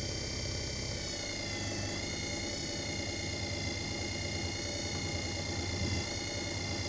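Desktop leather edge burnishing machine's electric motor running at high speed with a steady whine and hum. About a second in, the pitch dips slightly, then recovers.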